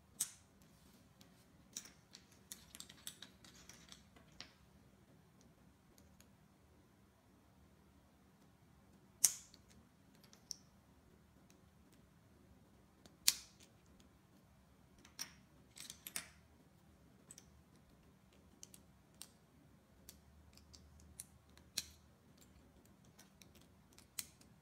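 Small plastic building bricks and wheel pieces clicking and snapping together by hand: irregular sharp clicks with a few louder snaps, and quiet handling rustle between them.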